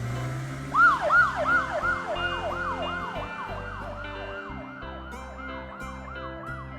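Police car siren in a fast yelp: rapid rise-and-fall wails about three a second. It starts about a second in, loudest at first, and fades slowly.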